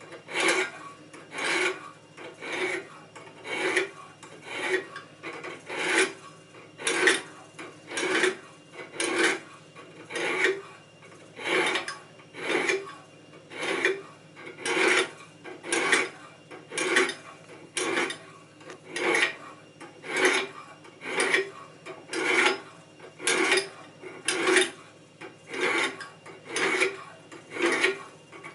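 A steel hand-plane iron held at a fixed angle in a homemade sharpening jig, drawn back and forth over an abrasive sharpening stone. The scraping strokes come in a steady rhythm, about three every two seconds.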